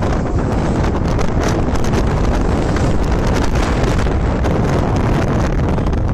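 Loud, steady wind buffeting the microphone of a moving motorcycle, with engine and road noise underneath.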